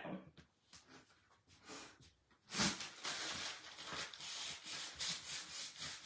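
Hands rubbing and smoothing a sticky silk-screen stencil transfer onto a small board: a scratchy rubbing noise that starts about two and a half seconds in and goes on unevenly, after a few faint taps.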